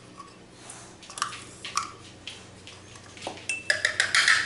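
Small plastic spice container being tapped and shaken over a measuring spoon to get the last of the dried dill weed out: a few light clicks, then a quick run of clicks and clinks near the end, the loudest part.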